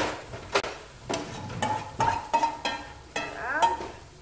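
A spoon knocking and scraping thick béchamel-and-yolk mixture out of a pan into a metal mixing bowl. A run of sharp metal taps, each leaving a short ringing note, with a scrape that rises in pitch about three seconds in.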